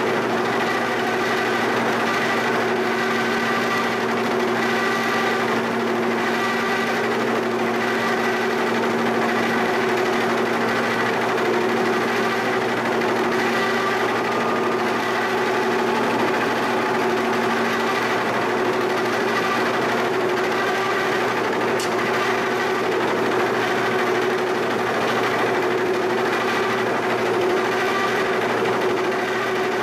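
Giddings & Lewis 340T horizontal boring mill running, its spindle cutter machining a relief into the cast shaper frame to knock off high spots of casting flashing. A steady mechanical hum with a few held tones; the lowest tone drops out about two-thirds of the way through.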